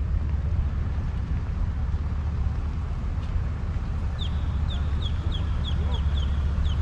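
A bird calling a quick run of short, falling chirps about four seconds in, over a steady low rumble.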